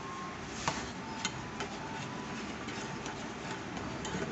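Saucepan of thickening sweetened milk mixture cooking over a gas burner: a steady hiss with a few faint, scattered clicks.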